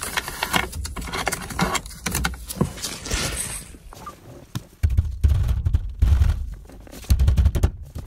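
Stock Honda S2000 steering wheel being knocked and yanked by hand to break it free of the steering column: rattling clicks and knocks, then two spells of dull, heavy thumps about five and seven seconds in.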